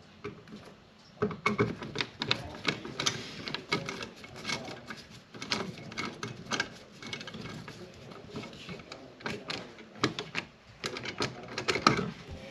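Rapid, irregular clicking and scraping of copper ground wires and a screw being worked into a metal electrical outlet box by hand, with a short pause about ten seconds in.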